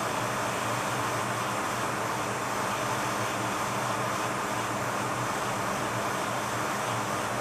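Hot air rework station blowing steadily onto a chip on a circuit board, an even rushing hiss with a faint low hum, as the chip's solder melts.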